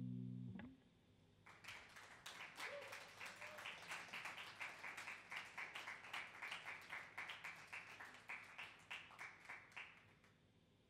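A guitar's last chord, played through effects, rings out and stops under a second in. Then a small audience claps for about nine seconds, with the separate claps distinct.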